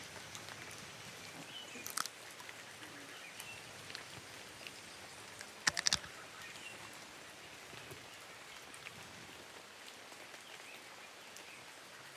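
Light rain pattering on foliage as a soft, steady hiss, broken by a few sharp clicks, the loudest a quick cluster about six seconds in.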